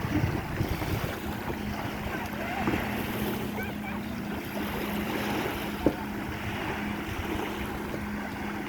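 Wind buffeting the microphone over lapping water, with a steady low hum underneath and a single sharp knock about six seconds in.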